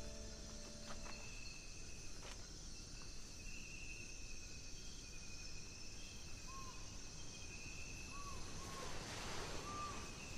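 Faint night-time forest ambience: insects chirring in steady high tones, with a few short chirps near the end and a brief soft rustle shortly before it.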